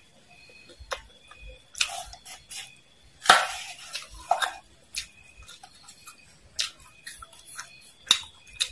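Metal spoon scraping the plate and scooping through a pile of crispy fried worms and mole crickets, with scattered sharp clicks and crackly rustles. The loudest is a rustling scrape about three seconds in.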